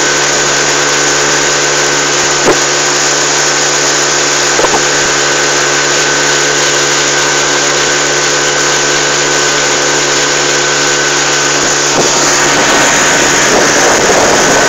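Motorboat engine running steadily at speed, with the rush of water from the wake. Two brief knocks come in the first five seconds, and near the end the engine note changes and the water noise grows louder.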